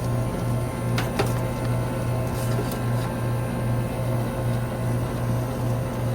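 Central air conditioner's outdoor condensing unit running with a steady low hum, with two light clicks about a second in. With its new run capacitor fitted, the unit is running normally.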